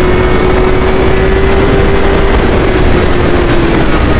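Honda 600 cc inline-four motorcycle engine with its stock exhaust, running at high revs while riding. It gives a steady high-pitched note that climbs slightly and then eases off near the end, over rushing wind noise.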